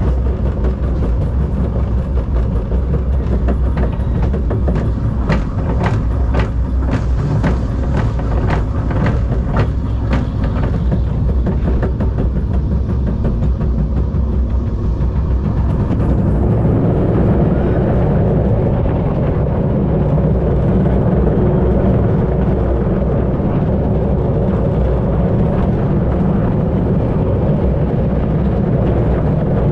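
Force Two roller coaster train running along its steel track, heard from aboard. In the first half there is a rapid rattling clatter; from about halfway it settles into a steadier, even rumble.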